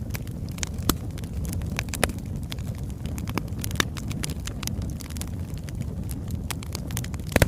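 Wood fire of burning logs crackling: irregular sharp pops and snaps over a steady low rumble, with a louder double pop near the end.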